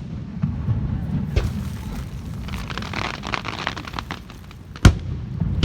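Fireworks going off: a smaller thump about a second and a half in, a run of crackling around the middle, then a loud, sharp bang near the end.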